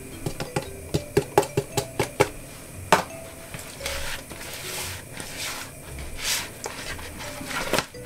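Hands rubbing seasoning into whole snapper fish in a plastic bowl. A quick run of sharp knocks and clicks in the first three seconds as the fish and fingers hit the bowl, then softer rubbing and shuffling with a few scattered knocks.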